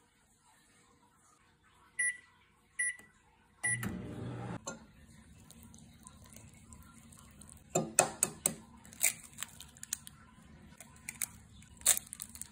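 Microwave keypad beeping three times, then the microwave starting up with a low hum, loud for about a second and then fainter. Later come a run of sharp clinks from a spoon on a glass mixing bowl, and a crack near the end as an egg is broken on the bowl.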